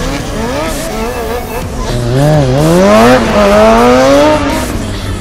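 Sport motorcycle engine revving up and down in short blips, then climbing to its loudest, highest revs between about two and four seconds in before easing off, as it is ridden in stunts.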